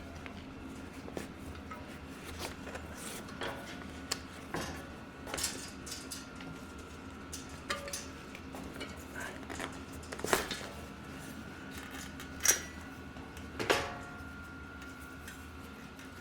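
Scattered clicks and light metallic knocks of hands and tools working a tire on a mountain bike wheel rim, the sharpest about ten, twelve and a half and fourteen seconds in, over a steady faint hum.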